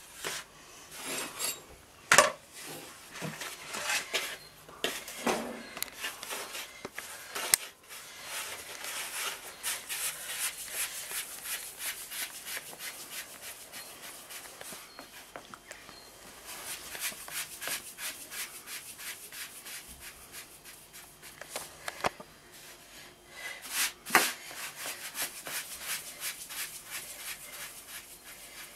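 Hands rubbing and shaping soft dough into balls on a floured wooden board: a steady dry rubbing and brushing, with a few sharp knocks on the board.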